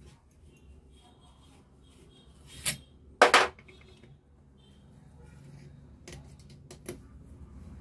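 Metal parts and tools clinking and clattering as a starter motor is taken apart by hand, with one louder clatter about three seconds in and a few lighter clinks later.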